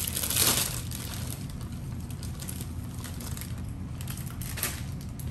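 Plastic packaging rustling briefly at the start, followed by faint scattered clicks and taps of handling over a steady low room hum, with one more short rustle near the end.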